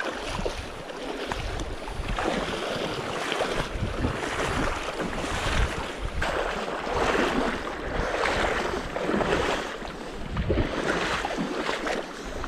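Boots splashing and sloshing through a shallow, rocky river as people wade along it, the splashes swelling with each step over the rush of the current, with some wind on the microphone.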